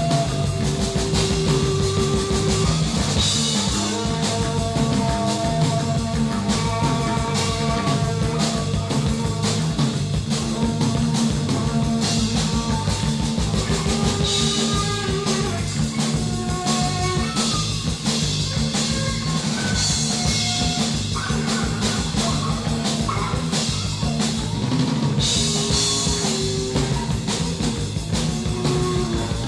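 Live recording of a rock band playing an instrumental passage: a busy, driving drum kit under sustained pitched notes, with bright cymbal bursts every several seconds.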